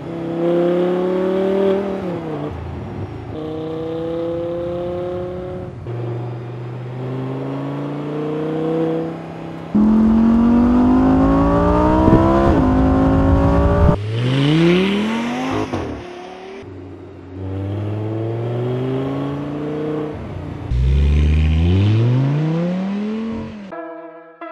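Audi R8's naturally aspirated V10 accelerating hard, its pitch climbing through the revs and dropping sharply at each gearshift, heard as a run of short edited passes with abrupt cuts between them. Music starts near the end.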